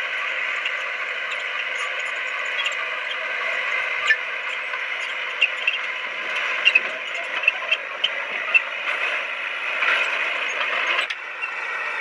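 Bulldozer's diesel engine running steadily, with a scattering of sharp clanks through the middle. The engine sound drops abruptly near the end.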